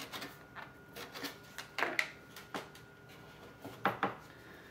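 Sandpaper rubbed by hand over a plastic auto body part in short, irregular scratchy strokes with a few light handling knocks, sanding leftover paint color off the inside before plastic welding.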